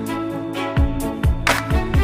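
Background music with a drum beat: deep kick-drum thumps and a snare hit about one and a half seconds in, over held instrument notes.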